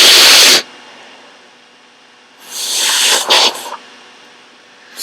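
A congested person with a cold forcefully blowing her nose: a loud blast of about a second at the start, then a longer blow from about halfway that ends in a couple of sharp honks, and a brief puff of air right at the end.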